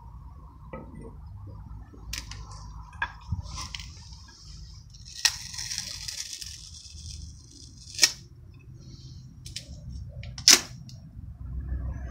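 Clear reinforced repair tape being handled and pulled from its roll: a rasping stretch of tape peeling off the roll in the middle, with scattered sharp snaps and clicks, the two loudest late on.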